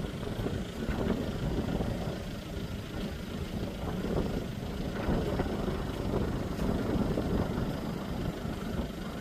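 Jet engines of a Boeing 777-300ER, two GE90-115B turbofans, running at taxi power as the airliner turns onto the runway to line up: a steady low rumble.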